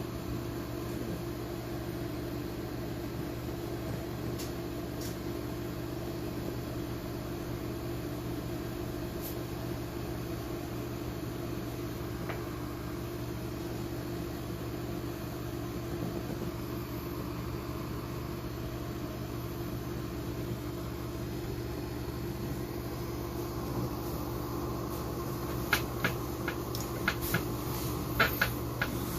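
Steady mechanical hum from a running motor or machine, with a few sharp clicks near the end.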